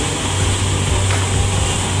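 Tracked rice combine harvester running at work in the paddy, cutting and threshing rice: a steady low engine drone under a dense, even mechanical rush.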